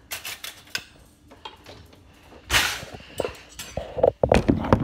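Kitchen handling noises: scattered knocks and clinks, a short scraping burst about halfway through, then a quick run of loud knocks and clatters near the end, like a bowl, utensils and a drawer or cupboard being handled.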